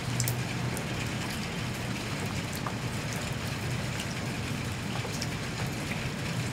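Rain falling onto a puddle on concrete: a steady patter with many scattered single drop ticks, over a steady low hum.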